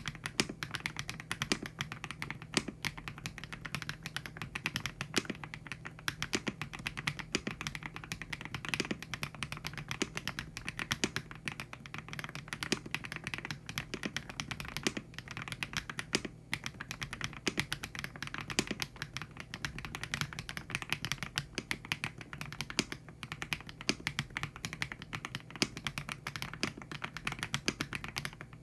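Typing on a YUNZII YZ98 mechanical keyboard fitted with factory-lubed HMX Cheese linear switches: a steady, fast stream of keystrokes.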